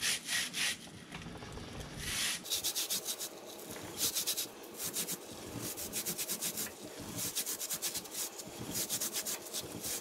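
Stiff bristles of a 360-degree chain brush scrubbing a motorcycle drive chain in short bursts of rapid back-and-forth strokes. The bristles are being forced in between the chain plates to scrub out gunk.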